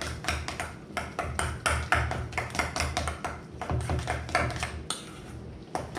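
A utensil knocking and scraping against a mixing bowl in quick, uneven strokes, mashing and stirring butter with spices into a compound butter; the strokes ease off for about a second near the end.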